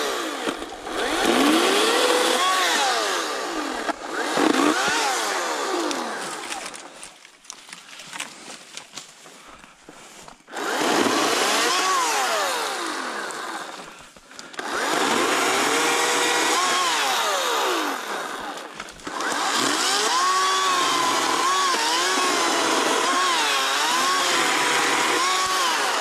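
Cordless Ryobi brushless electric chainsaw cutting through dead branches, its motor whine rising and falling in pitch as the chain bites and frees. It drops off for a few seconds about a third of the way in, and briefly twice more, as the trigger is let go between cuts.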